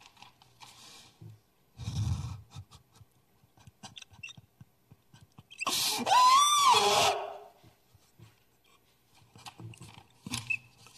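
A man's loud, high wailing cry, rising and then falling, lasting about a second and a half some six seconds in, with a short low vocal sound about two seconds in and faint breaths and clicks between.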